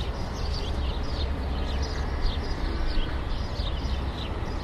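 City ambience: a steady low rumble of distant traffic, with small birds chirping over it in quick, repeated short calls.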